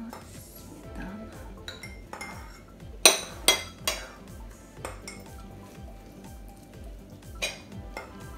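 A metal teaspoon clinking against a china plate several times: three sharp clinks in quick succession about three seconds in, then single ones about five seconds in and near the end.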